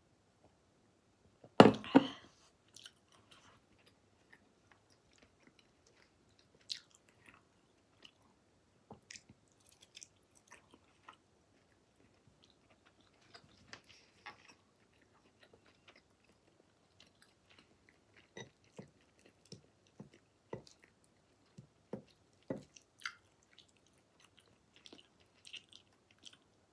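Close-up mouth sounds of a person eating raw seafood sashimi: scattered soft chewing, smacking and small clicks. One loud, short noise comes about two seconds in, right after a drink from a glass.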